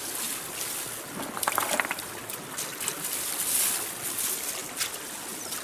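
Water sloshing and splashing in a run of short irregular splashes, with a steady trickle underneath.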